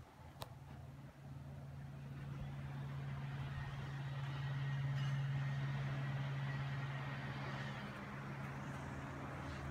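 Steady low hum with a rushing noise over it, growing louder over the first few seconds. A single sharp click comes about half a second in.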